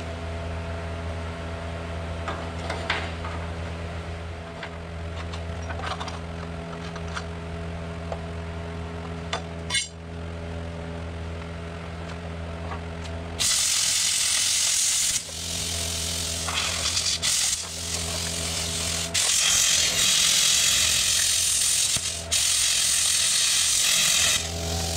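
Angle grinder cutting and grinding into the rusted steel truck frame, in several loud passes with short breaks, starting a little past halfway through. Before that, a steady mechanical hum with a few light clicks and knocks of hand work on the frame.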